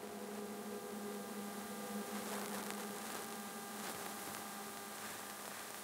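Quiet room tone: a steady low electrical hum under faint hiss.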